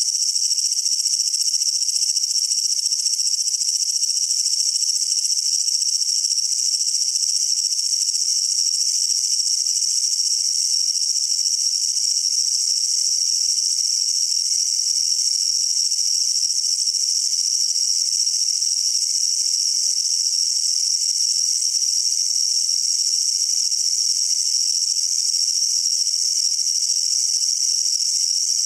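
Japanese kutsuwamushi katydid (Mecopoda niponensis) stridulating with its raised forewings: a loud, unbroken, high-pitched rasping buzz.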